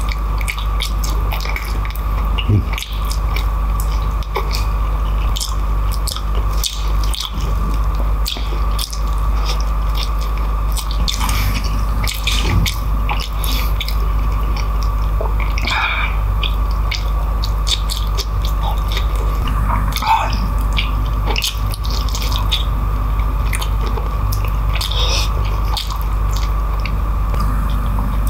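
Close-miked wet chewing, biting and lip-smacking as saucy beef kare-kare (oxtail and tripe in thick peanut sauce) is eaten by hand. Many short sticky clicks and squishes run over a steady background hum.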